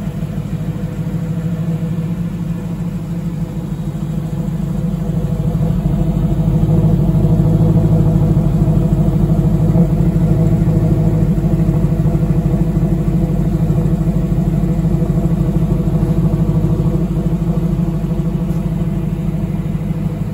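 Coyote 5.0 V8 swapped into a 1967 Mustang, idling steadily through a side-exit exhaust in front of the rear wheel. It grows louder from about five seconds in as the exhaust tip gets near.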